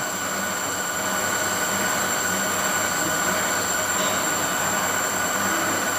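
Engine lathe spinning a Jaguar XK140 crankshaft while a 160-grit abrasive strip is held against a main journal to polish it: a steady whirring hiss with a high, steady whine.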